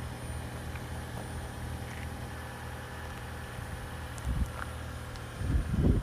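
Lexus CT 200h's 1.8-litre four-cylinder petrol engine idling steadily with a low hum. Two low rumbling bursts on the microphone, about four seconds in and a louder one near the end.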